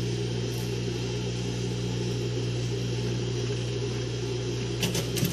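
Sewing machine's electric motor humming steadily with a low, even tone while the work sits under the needle. A few sharp clicks come in near the end.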